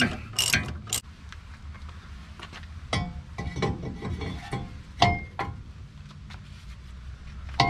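A ratchet wrench clicking through its last few strokes as a sway bar link nut is tightened, stopping about a second in. Then a few scattered light metallic clinks of tools and parts.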